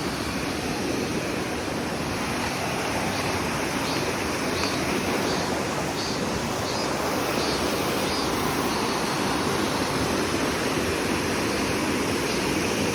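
Steady rush of water from a mountain stream and waterfall. Faint, high insect chirps repeat about every half second through the first half.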